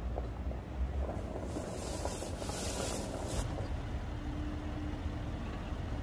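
Mercedes-AMG GLE coupe rolling slowly over gravel and pulling up, its tyres crunching on the stones over a low engine rumble. A loud hiss comes in about a second and a half in and lasts about two seconds; near the end the car sits idling with a faint steady hum.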